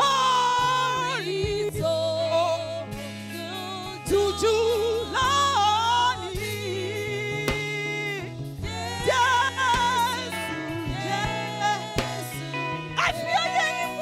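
Gospel song: a voice singing a slow melody with vibrato over sustained accompaniment chords and a bass line.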